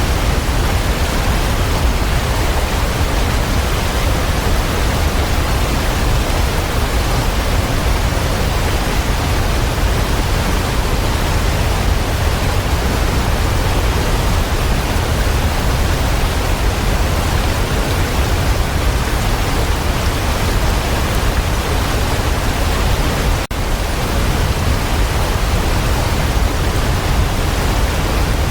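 Waterfall rushing steadily, an even wash of water noise heaviest in the low end, with a momentary dip in level late on.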